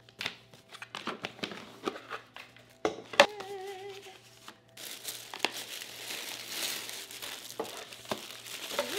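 Paper and packaging crinkling and rustling as a shopping purchase is unwrapped. There are scattered taps and clicks at first, a sharp knock about three seconds in, then steady rustling for the second half.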